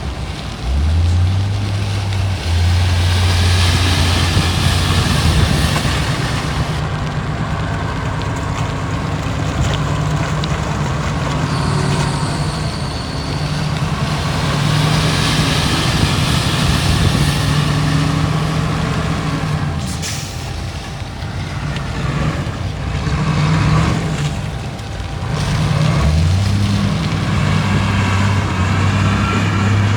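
Heavy diesel earthmoving machinery running hard, the deep engine note stepping up, easing off and rising again several times. Spells of high hissing come in over it.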